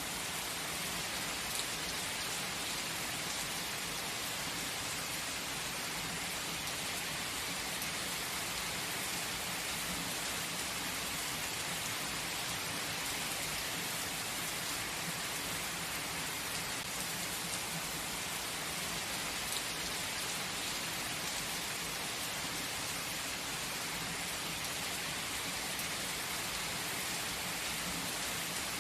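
Gentle rain falling steadily, an even hiss of many drops.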